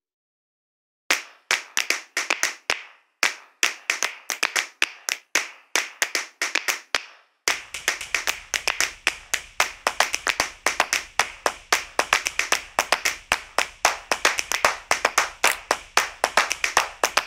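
Rhythmic hand claps in a percussion track: after a second of silence they come in short patterned groups with brief gaps, then about seven and a half seconds in they turn into a faster unbroken run with a low steady pulse underneath.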